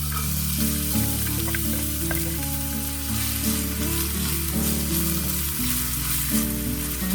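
Food sizzling as it fries in hot oil in a pan, the sizzle starting suddenly and then running steadily, over background music with sustained notes.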